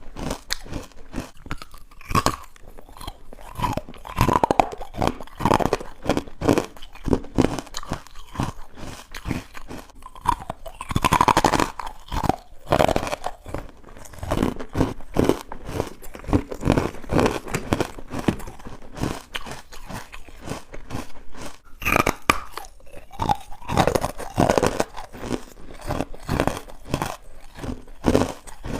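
Close-up chewing of crunchy carbonated white ice bites: dense, irregular crunching as the ice is bitten and ground between the teeth, with louder spells of crunching every several seconds.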